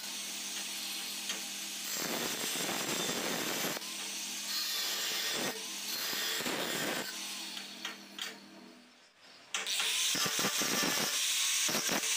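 Angle grinder cutting through round steel pipe with a thin cut-off disc: a steady motor whine under a high, hissing grind. Near the end the sound dies away briefly, then comes back suddenly louder and harsher as a grinding disc is run against the cut pipe end.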